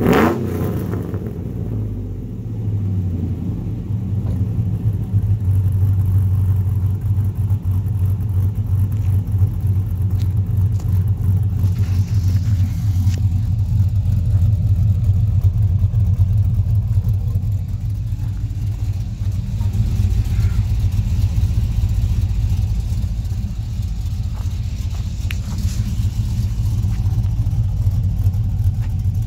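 Chevy Silverado 3500's 6.0-litre V8 with a stage 2 truck cam, heard through long-tube headers, an X-pipe and a true dual exhaust. It drops back from a rev right at the start, then idles with a steady, unevenly pulsing note.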